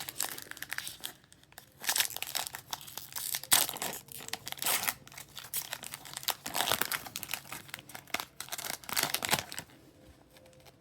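Wrapper of a Topps Chrome trading card pack being crinkled and torn open in a run of irregular crackling bursts, which stop about a second before the end.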